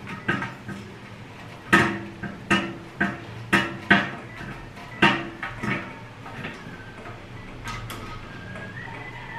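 Black metal rods and frame of a tiered desk file organizer knocking and clanking against each other as it is fitted together by hand. There are about ten sharp knocks with a short metallic ring, most of them in the first six seconds, then only light handling.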